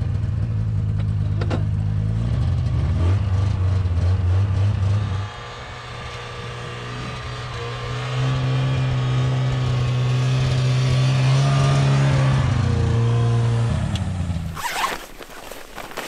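Snowmobile engine running at steady riding speed: it drops in loudness about five seconds in, grows louder again, and cuts off shortly before the end. Rustling and zipping of clothing follows.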